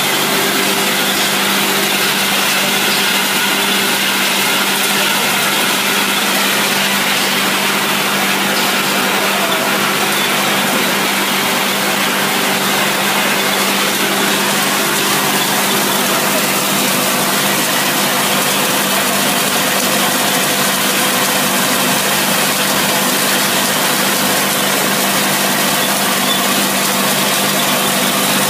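Dog food production line machinery running: electric motors and fans making a steady, loud drone with a constant low hum.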